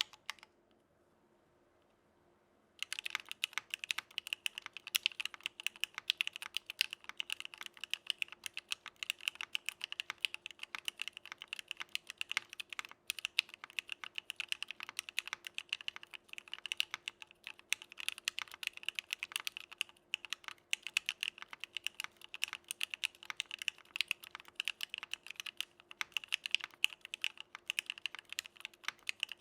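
Continuous fast typing on a mechanical keyboard with Gateron CJ linear switches in an aluminum plate: a dense stream of keystroke clacks. A single key click comes about half a second in, then steady typing starts about three seconds in.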